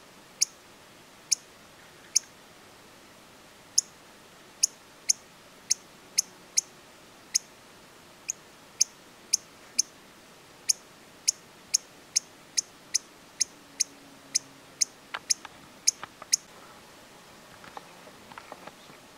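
Chipmunk giving a long series of sharp, high-pitched chip calls, about two a second and a little uneven, which stop about three seconds before the end. Faint rustling follows near the end.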